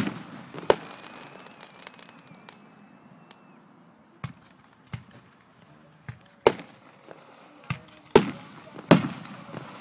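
Aerial firework shells bursting: about nine sharp bangs in loose clusters, each trailing off briefly, with the loudest at the start and in the last two seconds.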